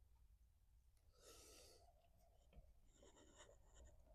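Near silence: faint room tone, with a soft breath-like noise about a second in and a few faint ticks near the end.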